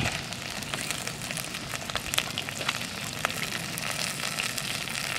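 Cut onions sizzling in hot mustard oil in an earthenware pot, a steady frying hiss dotted with sharp crackles and pops.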